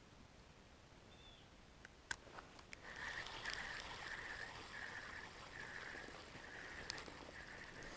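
Spinning fishing reel being cranked to retrieve the line. A few clicks come about two seconds in, then a faint rhythmic whirr pulses a little under twice a second, once per turn of the handle.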